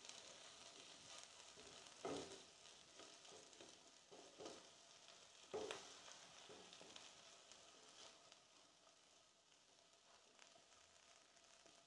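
Faint sizzling of a potato and pea mixture frying in a nonstick pan, with a few soft scrapes of a spatula stirring it, about two, four and a half and five and a half seconds in.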